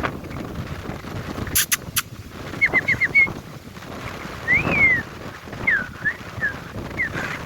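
Indian ringneck parakeet chirping: a quick run of four short chirps, then a longer rising-and-falling call and several scattered short chirps. Two sharp clicks come shortly before the chirps, and wind rumbles on the microphone throughout.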